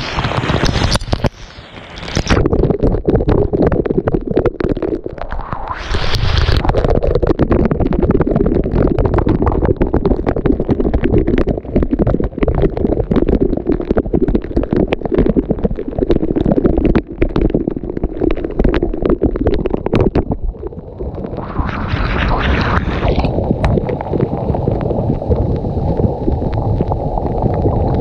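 Pool waterfall pouring over rocks, heard with the camera right in the falling water: a loud, muffled rushing and gurgling of water beating on the housing. It dips briefly about a second in, and turns brighter and hissier around six seconds and again around twenty-two seconds.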